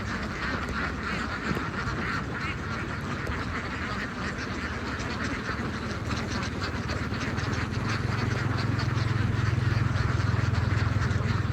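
A large flock of domestic ducks quacking continuously in a dense, overlapping chatter. A low steady rumble grows in about two-thirds of the way through.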